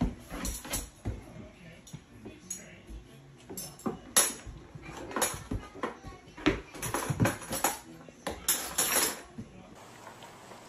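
Kitchen utensils clinking and clattering in irregular knocks as toddlers handle them from a drawer and dishwasher, with toddler babble.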